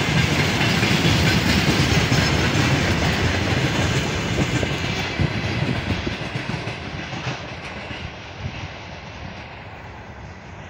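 Freight train of railway tank cars rolling past, wheels clattering over the rail joints in a dense clickety-clack over a steady rumble. The sound fades steadily from about four seconds in as the last cars pass and the train draws away.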